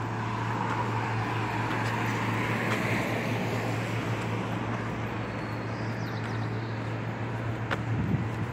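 City street traffic: a vehicle passing, swelling to its loudest about three seconds in and then fading, over a steady low hum.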